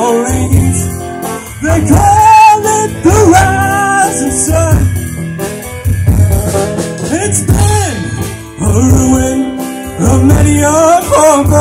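Live rock band playing loud through a PA: drum kit, electric guitars and bass guitar, with bending, gliding lead lines over a heavy low end.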